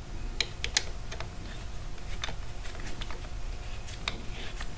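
Scattered light clicks and taps of hand tools and hardware being handled, as a 5 mm hex key and a mounting bolt are readied to fit a motorcycle handlebar perch mount.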